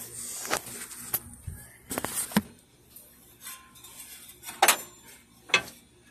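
Sharp metallic clinks and knocks, about six scattered strikes, the loudest two near the end.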